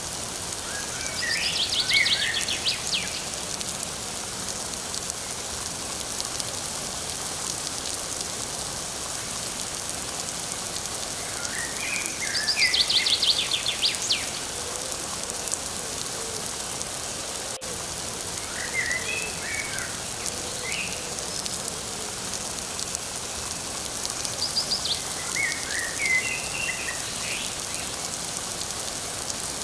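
Steady light rain falling, with songbirds singing short phrases of quick high notes that recur every several seconds, about five times.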